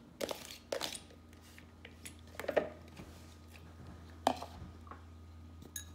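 Light knocks and clatters of a plastic mixing bowl as spinach is tipped into it from another bowl and then handled, a few separate knocks spread through, over a low steady hum.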